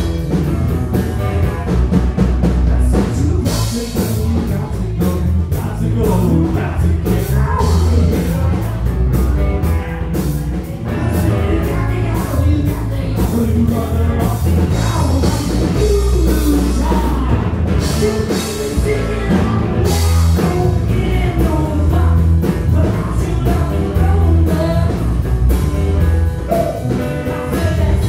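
Rock trio playing live: electric guitar, bass guitar and drum kit, with a voice singing over them.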